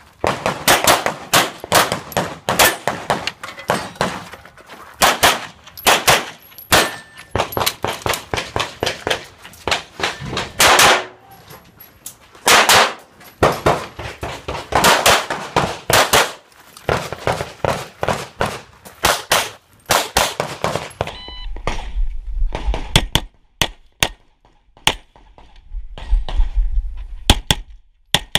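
Semi-automatic pistol fire in rapid strings of shots with short pauses, steel targets clanging when hit. Later the shots come more sparsely over a low rumble.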